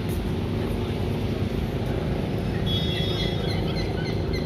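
Steady low rumble of city traffic outdoors, with a run of short, high bird calls starting about two and a half seconds in.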